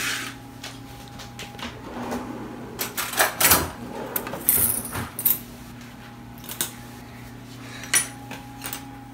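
Wooden kitchen drawer of cutlery pulled open and rummaged, with clinks and knocks of metal utensils clustered a few seconds in and a few more near the end. A faint steady hum runs underneath.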